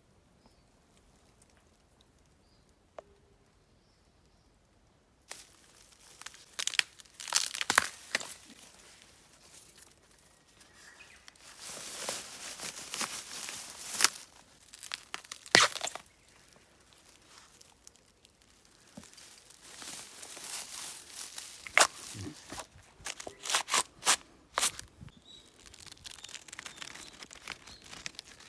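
Aluminium foil being torn and crumpled in irregular crinkling bursts with sharp crackles, starting about five seconds in after a quiet stretch with faint bird chirps.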